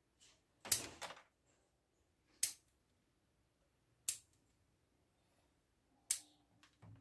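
Steel bonsai shears snipping the twigs of a field elm bonsai: four sharp snips about one and a half to two seconds apart, the first a double click.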